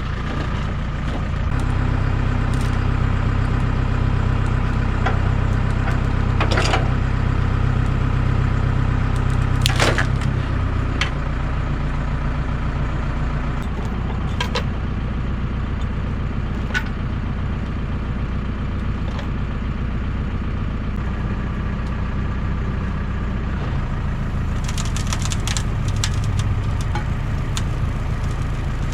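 An engine idling steadily, with a shift in its hum about a third of the way in and again near the end. Scattered sharp cracks stand out, loudest about six and ten seconds in.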